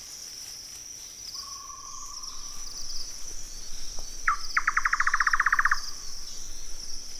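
Night insect chorus of crickets: a steady high trill with rhythmic chirping. A lower note is held for under a second near the start, and a loud, rapid trill of about fifteen pulses from an unseen night creature lasts just over a second midway.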